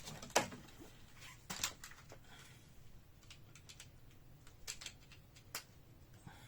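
Scattered light clicks and plastic rustling from hands handling small items, with a few sharper ticks among them.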